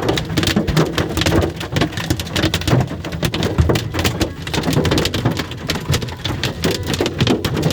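Golf ball-sized hail striking a vehicle's roof and windshield, heard from inside the cabin: a dense, continuous clatter of many hard impacts.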